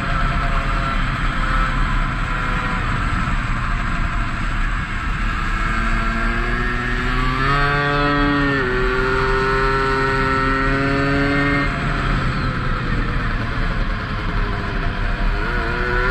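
Tomos 50cc two-stroke racing moped engine heard onboard at speed over a rush of wind. The revs climb around the middle and drop sharply a little past halfway, hold for a few seconds, then fall away and pick up again near the end.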